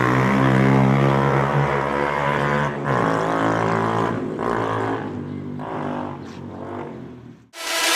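Suzuki Gixxer motorcycle's single-cylinder engine idling steadily through its newly made aftermarket silencer. The sound grows weaker after about three seconds and dies away just before the end.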